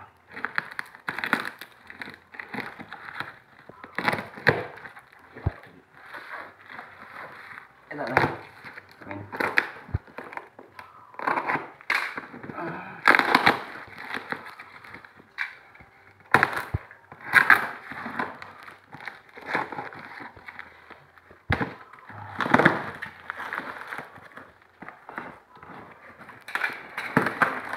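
Packaging being torn open and handled: irregular crinkling and rustling of plastic and tape, with sharp crackles.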